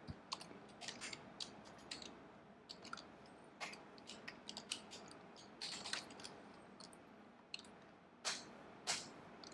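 Computer keyboard being typed on: faint, irregular key clicks, with a couple of louder clacks near the end.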